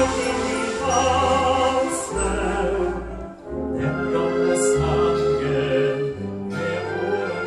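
Live orchestra playing a song with a male singer, the bass line moving note by note about once a second.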